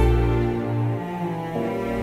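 Slow background music from a film score: long held notes over a deep bass, the chord changing about one and a half seconds in.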